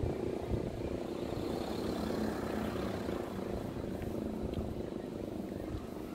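Hörmann E57 electromechanical motor siren sounding a steady tone during its weekly test.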